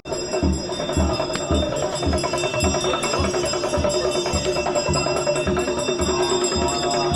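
Buddhist prayer ritual: mantras chanted in a held drone over a drum beating steadily about twice a second, with ringing metal percussion over the top.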